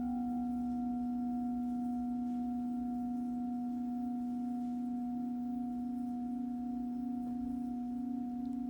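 Singing bowl ringing with a steady, sustained low tone and fainter higher overtones.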